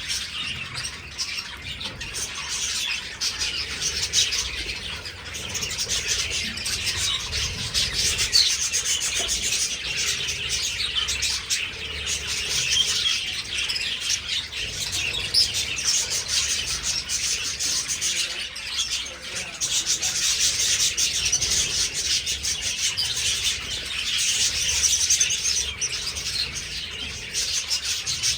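A flock of budgerigars chattering and chirping without pause, many short overlapping calls at once.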